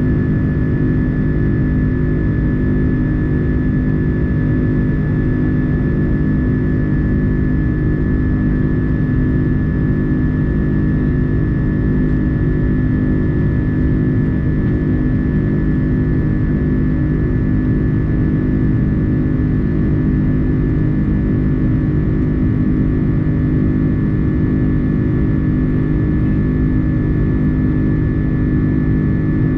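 Airliner's twin turbofan engines at climb power, heard from inside the cabin: a steady low drone with a high whine held on one pitch.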